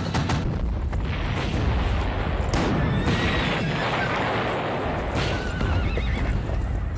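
Film battle sound effects: horses whinnying twice over galloping hooves and a steady low rumble, with several sharp explosion blasts.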